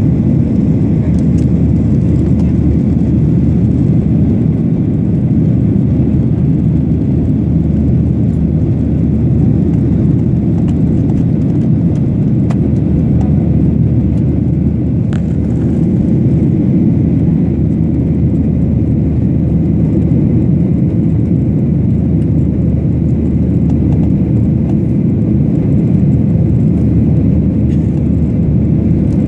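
Steady, loud cabin drone of a jet airliner in flight, heard from a window seat: engine noise and rushing air.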